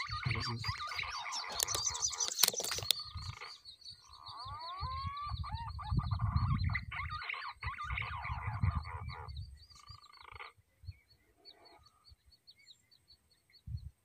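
Wild birds and frogs calling together: rapid chirping trills with a few rising whistles, thinning out after about ten seconds. A couple of sharp clicks come in the first few seconds.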